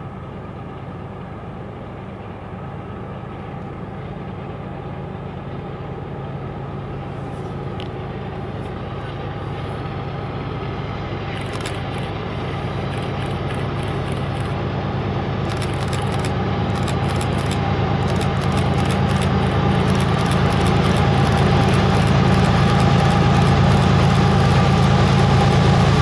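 Canadian Pacific freight train's diesel locomotives approaching, their engine drone growing steadily louder throughout. Rapid sharp clicks from the wheels on the rails build up in the second half.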